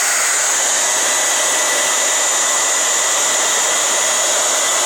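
Handheld hair dryer running steadily, a constant rush of air with a thin high whine over it.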